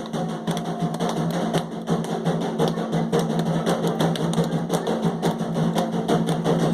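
Candomblé ritual drumming: atabaque hand drums playing a fast, dense rhythm between verses of the sacred chants.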